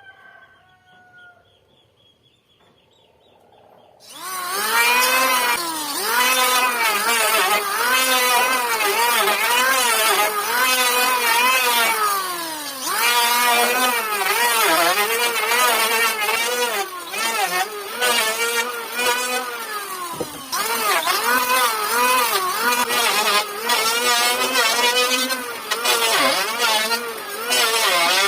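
Power tool cutting into a wooden beam, starting suddenly about four seconds in; its motor pitch keeps rising and dipping every second or so as the load on it changes.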